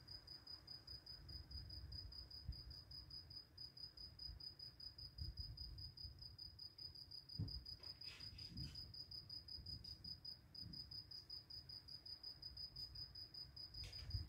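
A cricket chirping faintly in a steady, evenly pulsed high trill, over a low rumble of background noise. A few soft clicks come around eight seconds in and again near the end.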